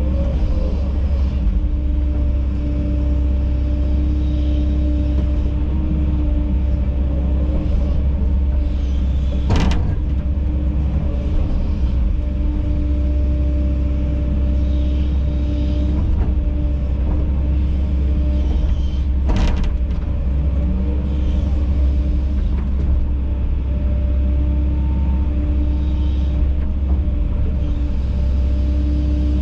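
Kobelco SK210 hydraulic excavator's diesel engine running steadily, heard from the operator's cab, with a low rumble and a steady hum. Two sharp knocks stand out, about ten seconds apart.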